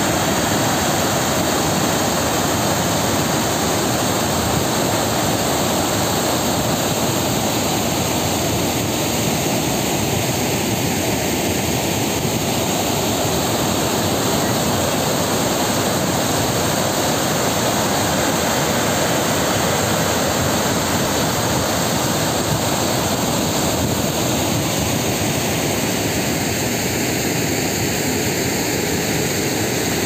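Water pouring over a dam's spillway crest and crashing below: a loud, steady rush of falling water.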